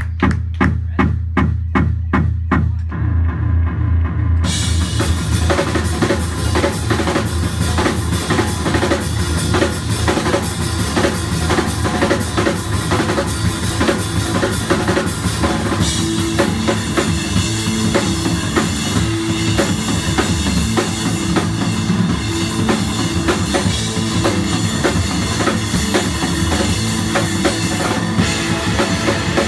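Live rock band playing an instrumental passage on drum kit and electric guitars. It opens on a steady beat of about four hits a second, and the full band with cymbals comes in about four seconds in.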